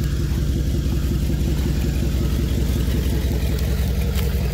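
Pickup truck engine idling steadily close by.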